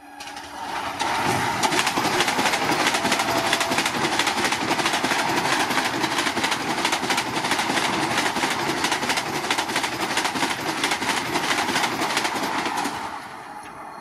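Vande Bharat Express electric multiple-unit train running past at about 133 km/h: a loud, steady rush of wheel and air noise with rapid clicks of the wheels on the rails. It builds over the first second and drops away sharply near the end.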